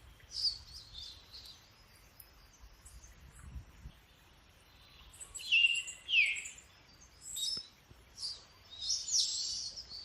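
Birds chirping and calling: scattered short high notes, with two loud falling whistles about halfway through and a quick run of chirps near the end.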